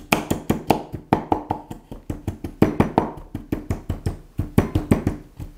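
Pestle pounding in a mortar, mashing cooked chickpeas with garlic, cumin and water into a paste: quick, steady knocks, about five a second.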